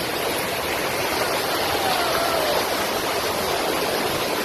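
Muddy flash-flood water from the wadis rushing across a street, a steady rush of fast-flowing water.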